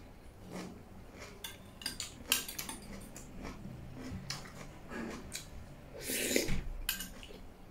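Metal fork and spoon clinking and scraping against white ceramic plates in short irregular clicks while noodles and food are picked up. About six seconds in, a longer, louder burst of eating noise as a forkful goes into the mouth.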